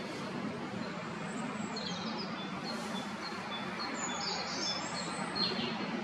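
Small songbirds chirping: a few quick falling notes, then a run of short high chirps. A steady low background hum runs underneath.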